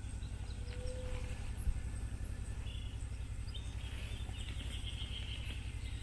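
Rainforest ambience: birds and insects calling. There is a short whistled note about a second in and a high chirring trill in the second half, over a steady low rumble.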